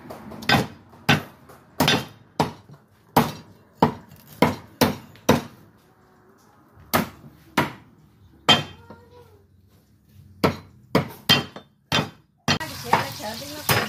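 Heavy cleaver chopping on a thick round wooden chopping block, cutting lemongrass, turmeric and garlic: sharp wooden knocks, one or two a second, with a pause of about a second and a half in the middle.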